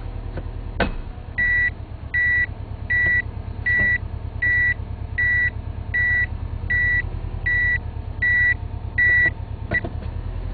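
Subaru EJ20 idling while the five-speed automatic is shifted from Park to Reverse on a slope without the parking brake: a sharp metallic clunk from the transmission as the load on the park lock is released, which the maker says is within specification. The in-cabin reverse warning then beeps steadily, about one beep every three-quarters of a second, and cuts off with another click near the end as the lever is moved again.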